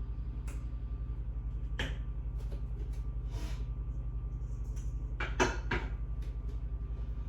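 Kitchen handling sounds: a knock about two seconds in and a louder pair of knocks and clicks near the end, like a cupboard door and dishes being handled, over a steady low pulsing hum.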